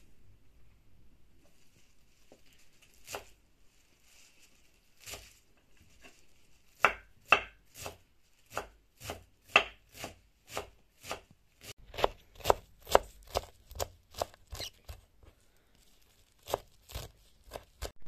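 Kitchen knife chopping fresh green herbs on a wooden cutting board: a few scattered strokes at first, then a steady run of sharp knocks about two a second from about seven seconds in, with a brief pause near the end.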